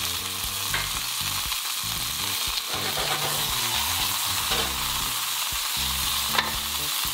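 Ribeye steak sizzling steadily in a hot cast-iron skillet, in olive oil with butter melting around it along with garlic and rosemary.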